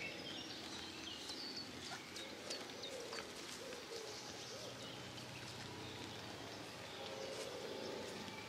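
Faint outdoor garden ambience with small birds chirping every second or so.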